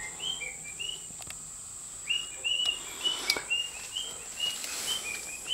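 Birds chirping in a steady run of short calls, about two a second, over a steady high-pitched whine.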